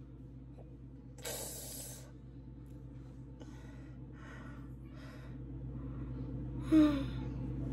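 A woman's breathing while spreading hot sugar wax on her arm: a sharp exhale about a second in, a few quieter breaths, and a short voiced grunt near the end, over a steady low hum.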